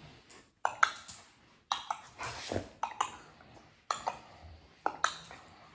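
A ball being hit back and forth as in a tennis rally: sharp knocks about once a second.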